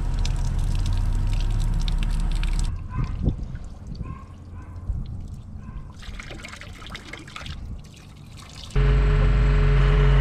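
Water trickling and dripping in fits, with small gurgles and clicks, around an open sewer line. Near the end, a loud, steady excavator engine cuts in suddenly.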